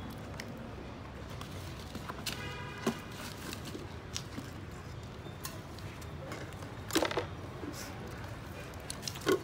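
Live freshwater eels being shaken out of a plastic basket into a glass bowl: a few sharp knocks and wet slaps against the glass, the loudest about three, seven and nine seconds in, over a steady low hum.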